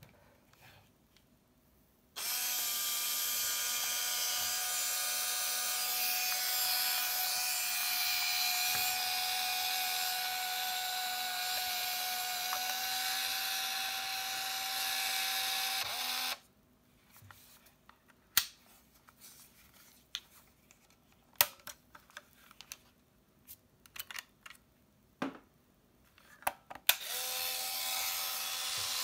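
Canon Prima BF-800's small electric film-transport motor whirring steadily for about fourteen seconds, then a run of sharp clicks and handling taps on the camera, and the motor whirring again near the end.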